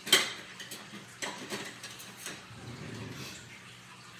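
Kitchen clatter: a sharp click right at the start, then several lighter clicks and knocks as kitchen things are handled.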